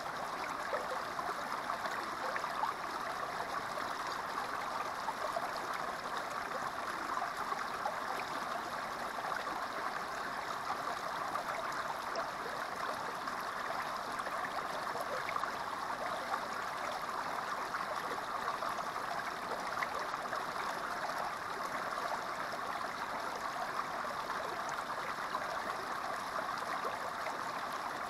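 Small creek spilling over a low rock ledge into a shallow pool: a steady, continuous splashing babble of running water.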